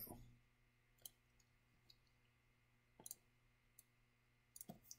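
Near silence, broken by a few faint, short clicks.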